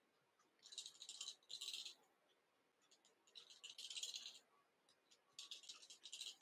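Fingers rubbing and twisting fly-tying thread and ostrich herl at the vise: soft, dry crackling rustles in four short spells, each about half a second to a second long.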